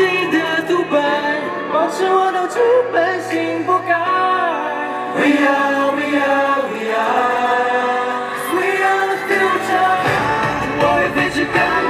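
Pop song with singing over backing music; the deep bass comes in about ten seconds in.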